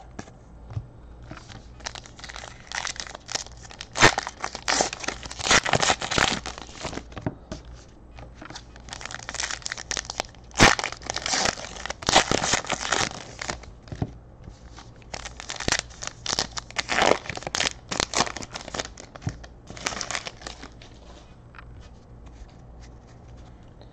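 Hands tearing open and crinkling the wrappers of football trading card packs, in irregular bursts of rustling and crackling with a few sharp snaps, as the cards are pulled out and shuffled.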